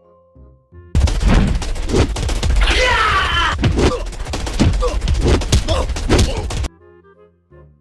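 A loud, sudden barrage of rapid gunfire and impacts, like an action-scene battle soundtrack, with a rising pitched cry or whine in the middle; it breaks in about a second in and cuts off abruptly near the end, with soft tinkling music on either side.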